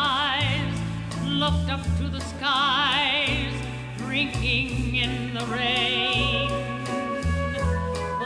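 A woman singing long held notes with a wide, strong vibrato, over instrumental accompaniment with a bass line that moves every second or so.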